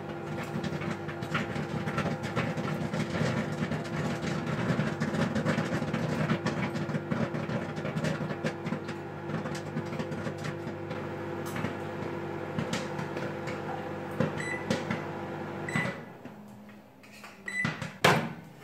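LG Grill microwave oven running with a steady hum while Act II instant popcorn pops in its bucket, many sharp pops scattered over the hum. The oven stops about 16 seconds in, followed by a few short beeps and a loud click near the end.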